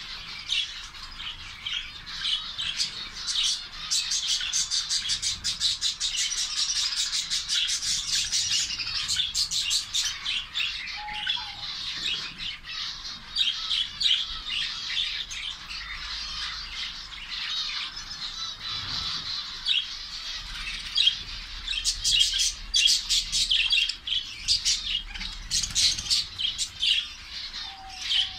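A colony of zebra finches calling all at once: a dense, continuous chatter of short high calls, with louder bursts of calling here and there.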